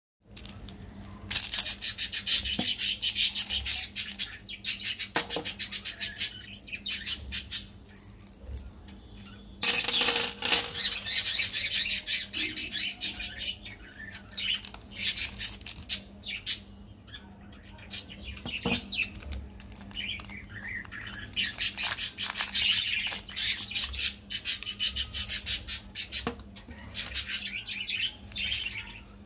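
Plastic and foil candy wrappers crinkling as they are handled, in several bursts of rapid crackling a few seconds long, over a faint steady low hum.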